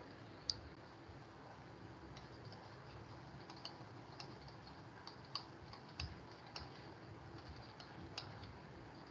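Faint, irregular taps and clicks of a stylus pen touching down on a tablet screen while handwriting, over a low hiss.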